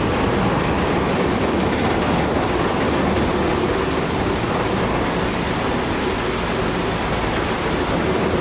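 A steady, loud rumbling noise with no clear rhythm or single impacts.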